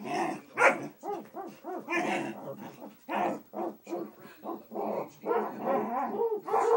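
Great Dane barking and whining in a rapid run of short calls, each rising and falling in pitch: the dog is worked up because the man's head is hidden from it.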